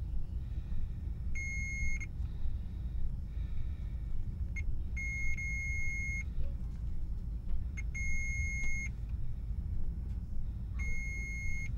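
Electronic beeper sounding four steady high beeps, each about a second long and a few seconds apart, with a couple of faint clicks between them, over a steady low rumble.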